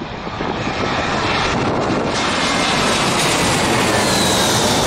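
Twin-engine jet airliner on final approach with its landing gear down, passing low overhead. The engine noise swells over the first couple of seconds into a loud, steady rush. Near the end a high whine slides down in pitch as the jet goes over.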